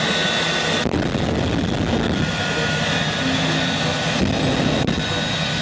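Jet engine of a jet-powered school bus running steadily: an even rushing noise with a faint high whine through it.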